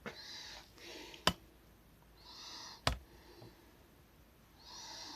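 Quiet breathing close to the microphone, soft breaths every two seconds or so, with two sharp clicks in between, about a second and a half apart.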